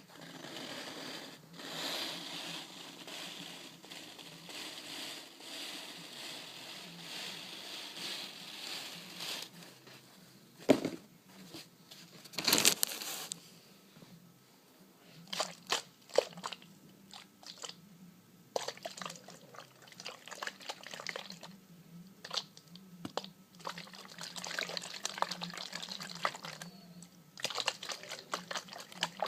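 Close-up crinkling and crunching, with scattered sharp clicks and taps; the two loudest come about 11 and 12 seconds in.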